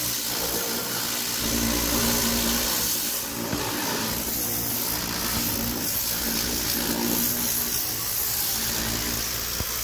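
Electric plunger-pump high-pressure washer running, its water jet hissing steadily over a low motor-and-pump hum that swells now and then.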